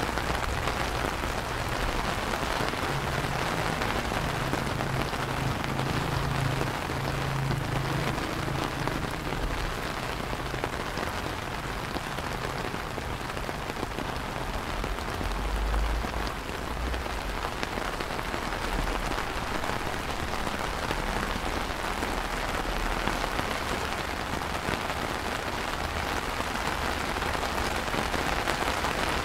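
Steady rain falling on wet stone paving, benches and garden trees, an even continuous patter, with a low rumble now and then.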